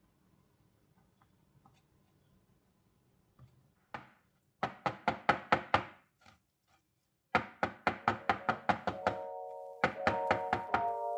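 A near-silent start. Then three quick runs of sharp, evenly spaced taps, about seven a second, begin about four seconds in. Background music with sustained chords comes in near the end.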